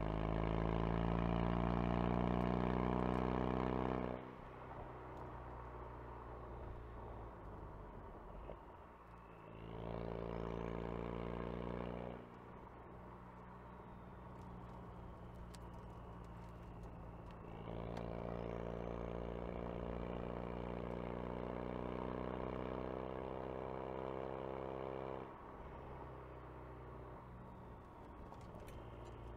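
Ford Focus RS engine pulling hard three times, its note rising as it accelerates, then falling back to a quieter off-throttle drone in between. A few faint sharp clicks come during the lifts.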